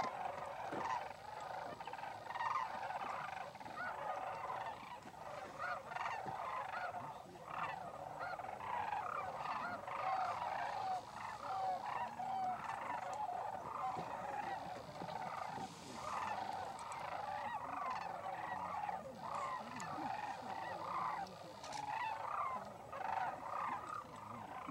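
A large flock of sandhill cranes calling, many birds at once in a dense, unbroken chorus of overlapping calls.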